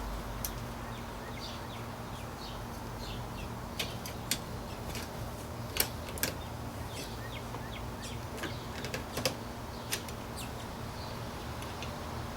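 Scattered light clicks, taps and small squeaks of a LiPo battery and its leads being worked into an airsoft AK's battery compartment, which it does not go into easily, over a low steady hum.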